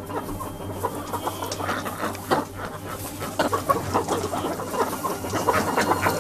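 Domestic hens clucking, with short irregular clicks and rustles as they peck and scratch in straw bedding.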